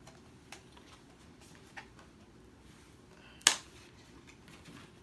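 A few light clicks, then one sharp, loud click about three and a half seconds in, from handling a metal Blu-ray steelbook case.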